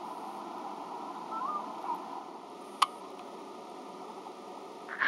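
Steady underwater hiss and hum of a seawater tank, picked up by a submerged camera, with a few faint short chirps about a second and a half in and one sharp click near the middle.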